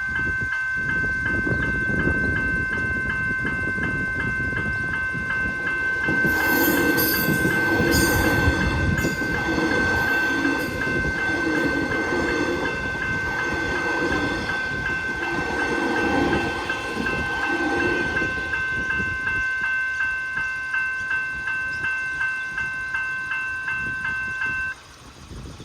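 General Signals Type 2 electronic level-crossing bells ringing in a fast, steady pulse while an X'Trapolis electric train runs over the crossing. The train is loudest around the middle. The bells stop abruptly near the end as the crossing clears.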